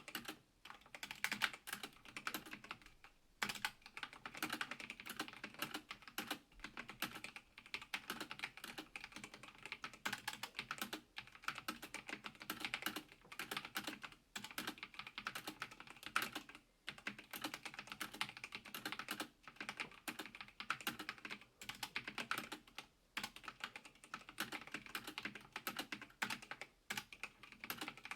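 Continuous fast typing on a Logitech G512 Carbon mechanical keyboard with GX Red linear switches: a dense run of key clacks with brief pauses every few seconds.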